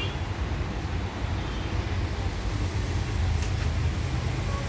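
Steady low background rumble, with a few faint ticks near the middle.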